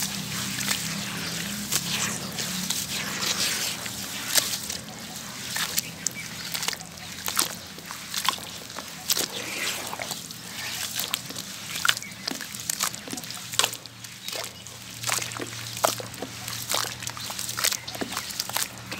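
Hands squeezing and kneading wet sand-cement slurry in a basin of water: wet sloshing and squelching, crowded with many small sharp splats and pops, and slurry trickling back into the water.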